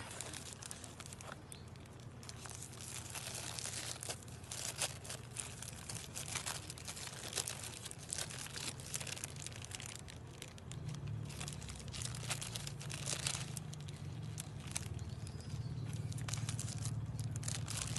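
Crinkling and rustling of fast-food paper packaging being handled, with scattered crisp crackles throughout, over a low steady hum.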